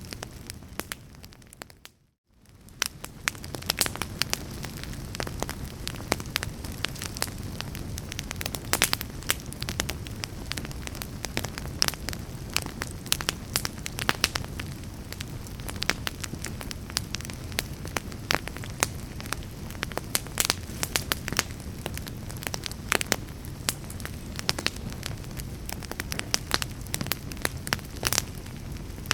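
Wood fire burning, with frequent sharp crackles and pops over a steady low rumble. About two seconds in, the sound fades almost to silence and then swells back.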